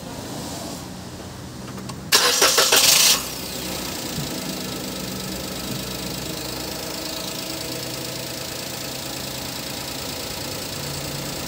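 Perodua Axia's three-cylinder petrol engine being started: the starter cranks loudly in quick pulses for about a second, about two seconds in, then the engine catches and settles into a steady idle.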